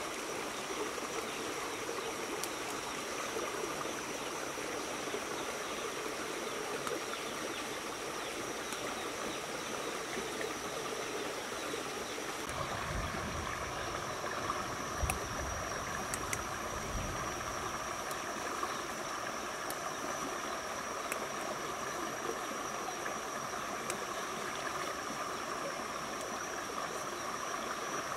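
Shallow stream running steadily, a continuous even rush of water with a thin, steady high tone above it. A few seconds of low rumbling come in the middle.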